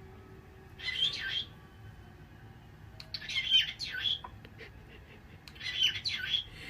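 Pet parrot chirping and squawking in three short bursts of high calls, about a second in, around three to four seconds in, and near the end.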